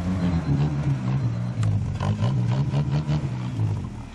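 Modified Suzuki Jimny trial rig's engine revving up and down in repeated surges as it crawls over a steep dirt slope. A run of clicks and knocks comes about halfway through, and the engine note falls away near the end.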